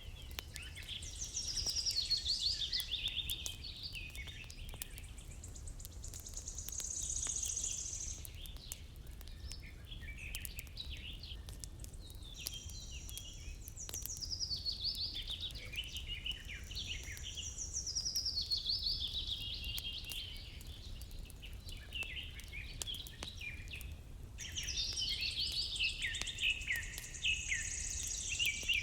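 Songbirds singing: phrases of rapid chirps that step down in pitch, a song every few seconds, over a steady low rumble.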